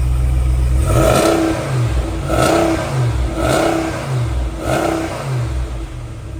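A Ram Power Wagon's 6.4-litre V8 idling, then revved in four quick blips about a second apart, pitch rising and falling with each blip.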